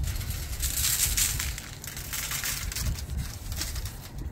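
Coarse seasoning shaken from a shaker jar, the granules rattling in the jar and hissing and pattering onto a meat roast and aluminium foil, loudest about a second in, over a low steady rumble.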